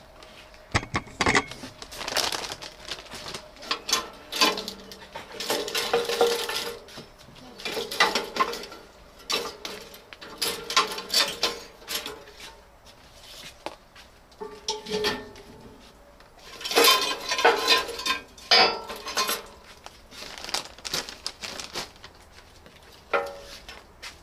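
Metal clattering and clinking in repeated bursts with short pauses, some hits leaving a brief ring.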